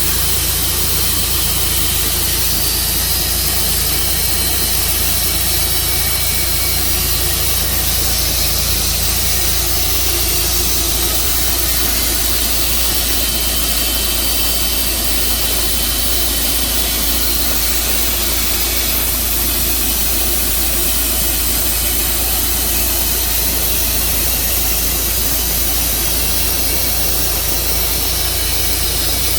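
Sawmill running steadily with an engine hum under a strong hiss; the sound shifts slightly about 11 seconds in.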